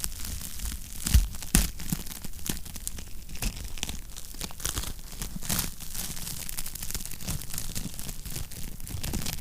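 Wood fire crackling with irregular snaps and pops, two louder pops a little over a second in, over a steady low rumble.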